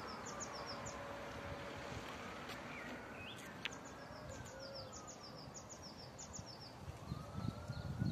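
Faint outdoor ambience: birds chirping in quick runs of short high notes over a steady hiss, with a faint tone in the background that slides slowly down and then up in pitch.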